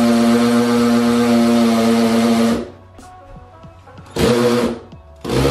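Cordless drill running at one steady speed as it bores into the wall, cutting off sharply about two and a half seconds in. Two short bursts of the drill follow near the end.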